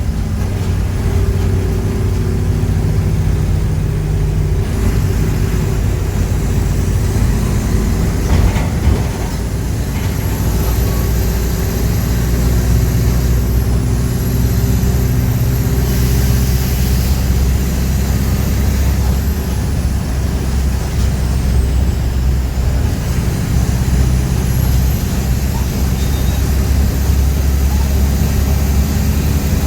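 Diesel engine of a Mercedes-Benz OF-1418 bus running on the move, its note shifting up and down several times as it works through the gears. A faint high whistle rises and falls along with it.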